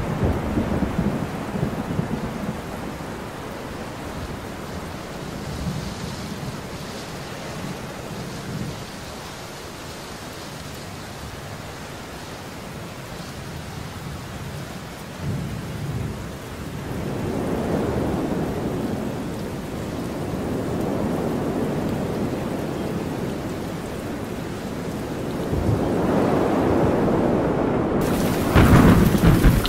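Thunderstorm: steady rain with rumbles of thunder swelling and fading several times, and a sudden, louder clap of thunder near the end.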